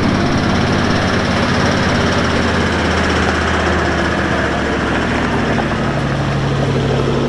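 Toyota LandCruiser 76 engine running steadily as the vehicle drives slowly, a continuous low engine drone.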